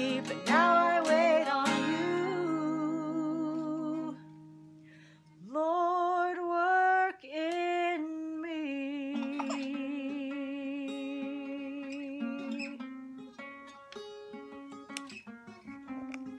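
Acoustic guitar strummed under a slow sung melody, with a short drop in the music after about four seconds and a long, wavering held note in the middle; near the end the singing stops and the guitar goes on alone.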